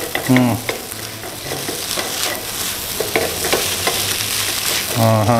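Fried rice sizzling in butter in a non-stick pan while a silicone spatula repeatedly scoops and turns it, with short scrapes against the pan. The rice is being fried until its moisture cooks off and it turns dry.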